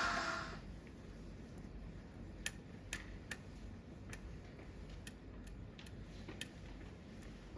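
Music fades out at the start. Then a faint low hum carries a handful of irregular sharp clicks or taps, about eight of them, spread over a few seconds.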